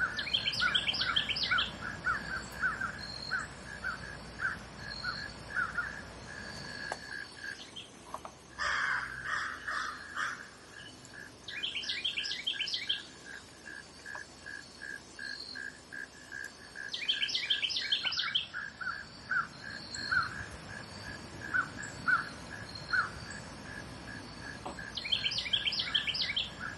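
Woodland outdoor ambience: a bird's song phrase of quick high chirps repeating every five or six seconds over a steady pulsing insect chorus, about three to four pulses a second.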